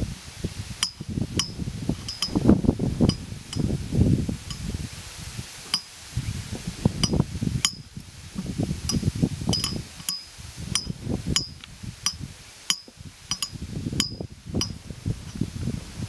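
Wind buffeting the microphone in gusts, with a scatter of short, sharp high clicks at irregular intervals.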